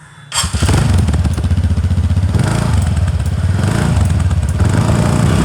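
Triumph Scrambler 400X's single-cylinder engine running loudly close by, a steady rapid beat of firing pulses that starts abruptly about a third of a second in.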